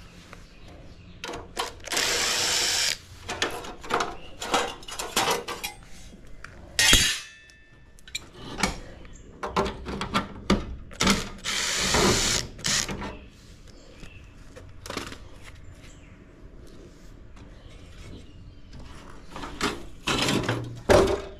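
A power drill run in two short bursts of about a second each, between irregular knocks and clicks of tools and metal parts, with one sharp loud knock about seven seconds in.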